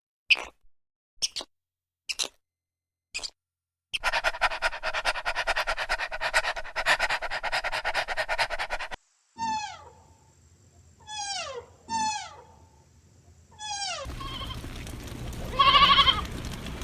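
A string of short animal-sound clips cut one after another: a few sharp short sounds about once a second, then a rapid pulsing sound for about five seconds, then four calls that each fall in pitch, and near the end another call over background noise.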